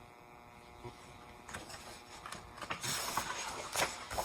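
Paper rustling of a picture book's pages being handled and turned, several short rustles from about a second and a half in, over a steady electrical hum.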